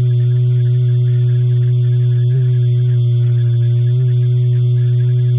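A kick drum rendered through 73,160 stacked Soundgoodizer plugins in FL Studio, squashed into a continuous drone: a loud, steady low hum with fainter higher tones and hiss on top.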